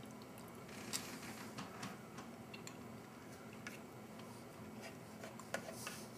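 Faint scattered clicks and scrapes of a plastic spork against a stainless steel food tray as the last of the food is scooped up, over low room hum.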